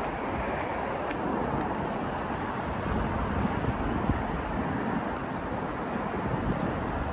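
Steady outdoor street ambience: a constant low rumble with no distinct events.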